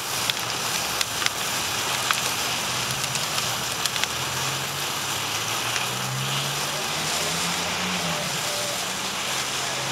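Homemade rocket candy burning on an Xbox 360 circuit board: a steady hiss with a few sharp pops and crackles, mostly in the first half. A low engine drone rises and falls in the background in the second half.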